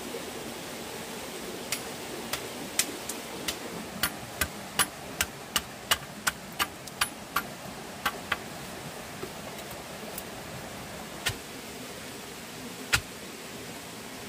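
A series of sharp knocks, about two to three a second through the middle, then a few more spaced out toward the end, over a steady background hiss.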